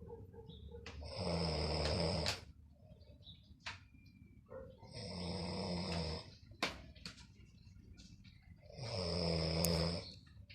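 Snoring: three loud snores about four seconds apart, each lasting over a second, with quieter breaths and a couple of sharp clicks between them.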